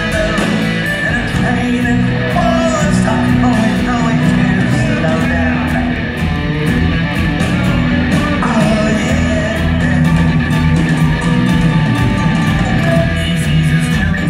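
Live rock band playing loudly, with electric guitar, drums and keyboards under a male lead vocal, heard from the audience.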